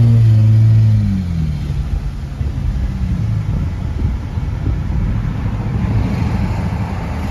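Car engine held at steady high revs, dropping off about a second in, then a rough low rumble of engine and road noise while driving.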